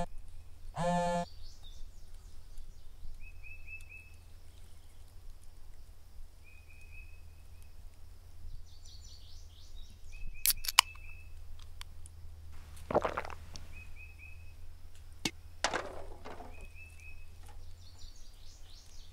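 Outdoor ambience with a steady low hum and short bird chirps now and then. About ten seconds in, a few sharp clicks come from an aluminium soda can's pull tab being opened. Two short rushing noises follow a few seconds apart.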